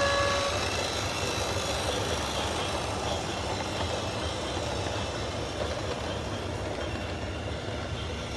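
Train horn on one steady note that cuts off about half a second in, followed by the steady running noise of the train, slowly fading away.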